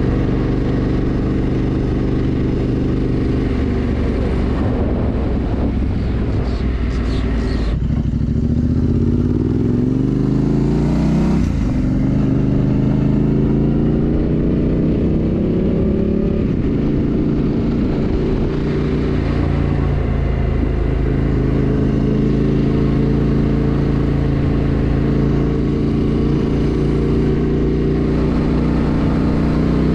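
Yamaha Tenere 700's parallel-twin engine under way. The engine note drops sharply about eight seconds in, then climbs as the bike accelerates, with a gear change about three seconds later. After that it rises more slowly and settles into a steady cruise.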